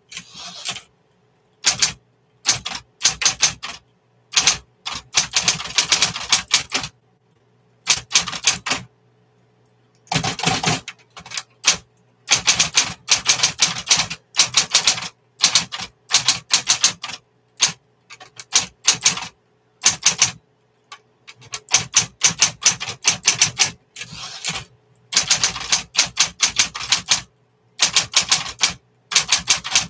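1960s Smith Corona electric typewriter being typed on in quick bursts of keystrokes a few seconds long, with short pauses between runs. A steady low motor hum continues under the typing and through the pauses.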